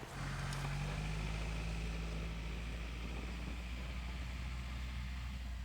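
Honda Element's engine running steadily, a low, even hum.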